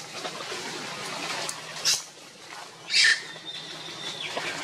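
Long-tailed macaque screeching in a scuffle: two short, sharp, high-pitched cries about a second apart, the second followed by a thin high note held for about a second.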